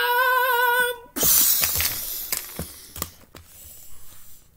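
A child making a mouth sound effect for a superpower attack: a held, steady-pitched "aaah" for about a second, then a loud hissing blast that fades over the next couple of seconds. Plastic action figures knock together a few times as the blast dies away.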